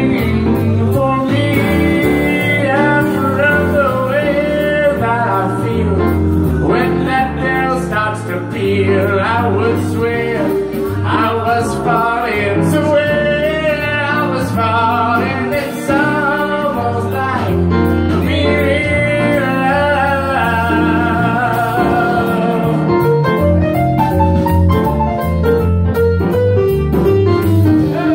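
Singing accompanied by piano, a voice carrying a melody with vibrato on held notes over chords played on the keys.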